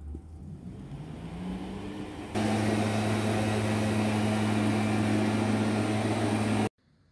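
A motor hum that rises in pitch over the first two seconds, then suddenly runs much louder and steady for about four seconds before cutting off abruptly.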